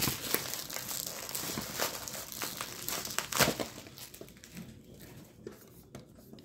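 Plastic bubble wrap crinkling and crackling as it is pulled off a baseball, with many small clicks and rustles. It is busiest in the first few seconds and dies down after about four seconds.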